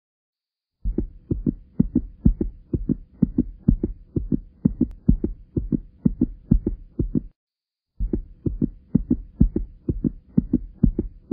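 A beat of rapid, regular low thumps like a heartbeat, roughly three to four a second, over a faint steady hum. It breaks off for a moment about seven seconds in, then resumes.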